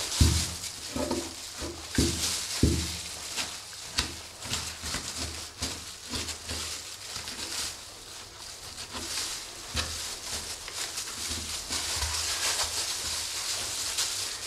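Knife cutting through the tendons and meat of a pork shoulder, freeing it from the bone, with wet handling of the meat on a stainless-steel table. A few soft thumps come in the first three seconds.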